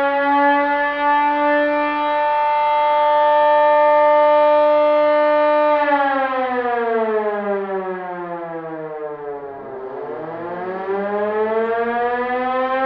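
Warning siren sounding a steady chord of several tones, then winding down in pitch from about six seconds in and winding back up near the end.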